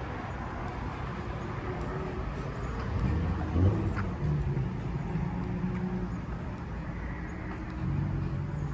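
Road traffic: cars going by with a steady low rumble.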